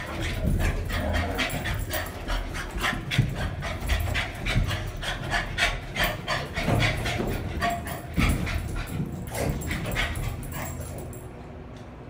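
Boston Terrier panting, a fast run of short, noisy breaths that thins out near the end.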